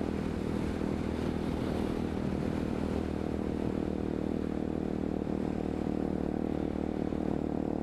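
Hawk 250 motorcycle's single-cylinder four-stroke engine running at a steady, unchanging pitch while cruising, with a steady rushing noise around it.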